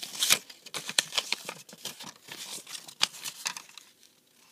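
Folded paper log sheets handled and flipped through by hand: a quick run of paper rustles and flicks that dies away near the end.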